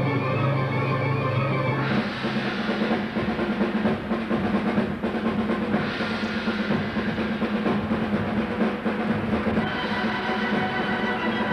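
Music: a held chord gives way about two seconds in to a rapid drum roll over a steady low note, with sustained higher tones coming back in near the end.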